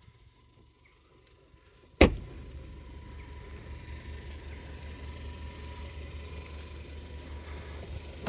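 Skoda Fabia hatchback's boot lid slammed shut with a single loud thud about two seconds in, followed by a steady low rumble, and another thud of a car door closing at the very end.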